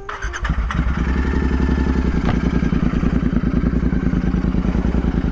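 Royal Enfield Continental GT 650's 648 cc parallel-twin engine starting up: it catches about half a second in and settles into a steady idle.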